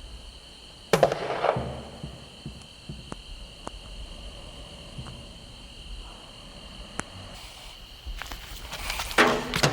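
Sparse passage of a tribal percussion track. One loud drum hit rings out about a second in, then scattered light taps sound over a steady high tone, and the full drumming comes back in near the end.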